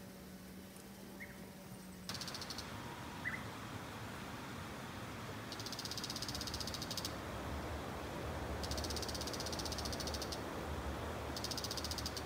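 Quiet outdoor ambience. From about two seconds in, a high, rapidly pulsing trill comes four times, each lasting about a second or a little more.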